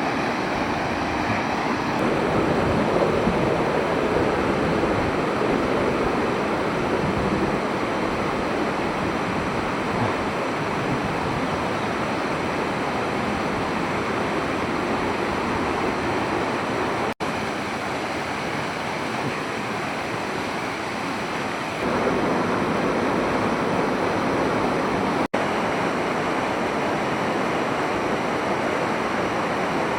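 Steady rushing of a waterfall's falling water, with no other sound over it. The sound drops out for an instant twice, with small jumps in level, where the recording is cut.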